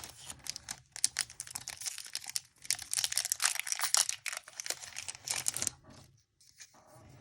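Foil wrapper of a Pokémon TCG booster pack crinkling and tearing as it is opened, dense crackling for most of the time, then a few fainter light ticks near the end.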